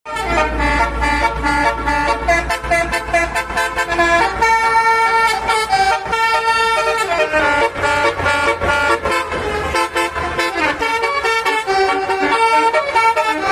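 Basuri 'telolet' multi-tone bus horn playing a tune of held notes that change pitch, over a low rumble in the first few seconds.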